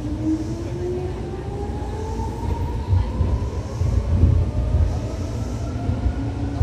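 Seibu 2000 series electric train's traction motors and gears whining, several tones rising steadily in pitch as the train accelerates, over a low running rumble with a couple of heavier low thumps about three and four seconds in.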